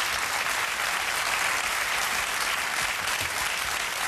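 Studio audience applauding steadily in a dense, even clatter of many hands clapping, welcoming a guest.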